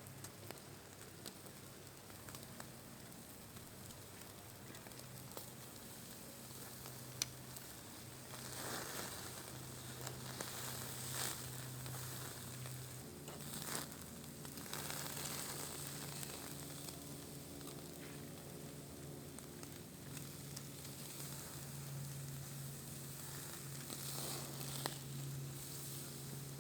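Food sizzling as it fries, growing louder about eight seconds in, over a steady low hum.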